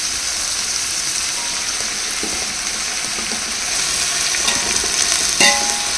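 Sliced onions sizzling in hot oil in a large aluminium pot, stirred with a perforated metal ladle, with the salt added to soften them faster. The ladle clinks against the pot a couple of times near the end.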